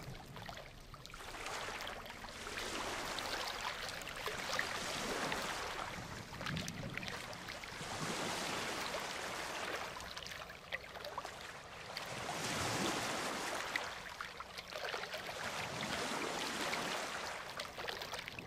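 Ocean surf washing onto a beach, the noise of the waves swelling and fading in about four surges, a few seconds apart.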